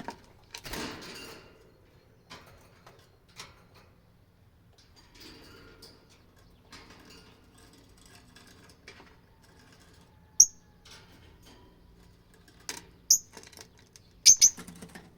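Fischer's lovebirds giving a few short, sharp high chirps: one about ten seconds in and a small cluster near the end. In between there is faint rustling and light tapping.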